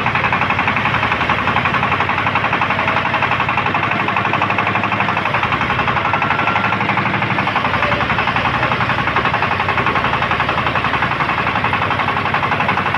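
Engine-driven circular sawmill running, its engine firing in a rapid, even beat that stays loud and steady throughout.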